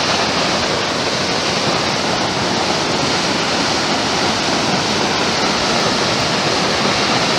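Steady rush of water released from the dam, pouring down its face and crashing below.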